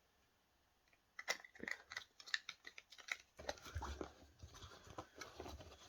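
Small fidget toys being handled: a run of light clicks and scratches about a second in, turning into denser scratchy rustling about halfway through.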